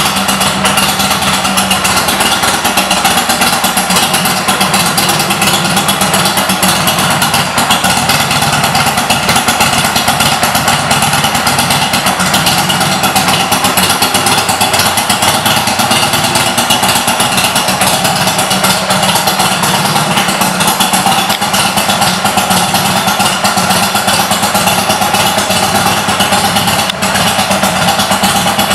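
A Buell XB12Ss motorcycle's 1203 cc air-cooled V-twin engine running steadily at idle.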